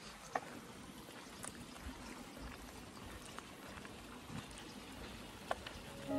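Faint, steady running water from a small stone-lined stream, with a few light clicks.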